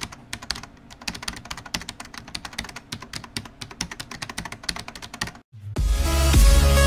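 Typing sound effect: a rapid, irregular run of key clicks as on-screen text appears, stopping about five and a half seconds in. Electronic music with heavy bass starts just after.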